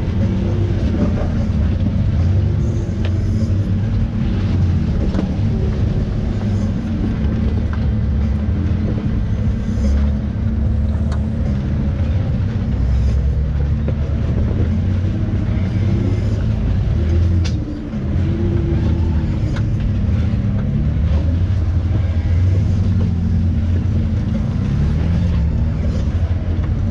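Off-road vehicle engine running steadily at low revs, its pitch rising and falling slightly as it crawls up a rocky waterfall climb. There is a brief lull about two-thirds of the way through.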